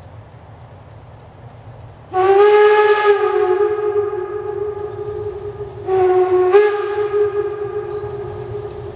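Narrow-gauge steam locomotive sounding its steam whistle in two long blasts, the second stepping up slightly in pitch shortly after it starts, over the low rumble of the approaching train. The blasts answer a 'P' whistle board (Pfeiftafel), the signal to whistle ahead of a level crossing.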